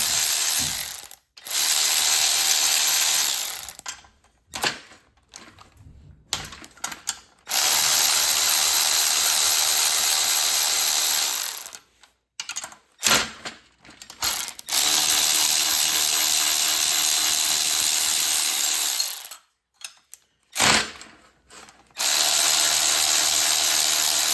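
Small electric wrench running in four bursts of a few seconds each, with short pauses and light clicks between, as it loosens the cylinder head bolts on a Predator 212 engine.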